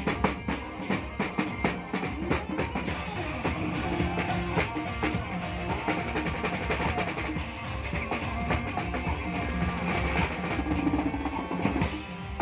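Drum kit played with dense strokes and bass drum hits, over sustained pitched notes from other instruments.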